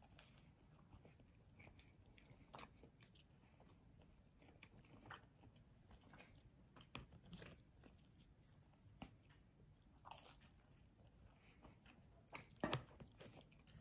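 Faint close-up mouth sounds of food being bitten and chewed, with scattered soft crunches and clicks.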